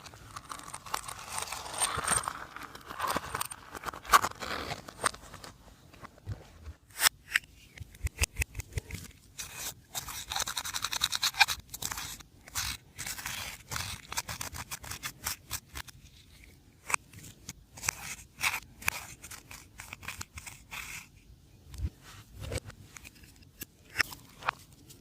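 Slime being worked by hand, giving many sharp sticky clicks, snaps and crackles. There is a dense crackling run in the first few seconds, then scattered, irregular pops.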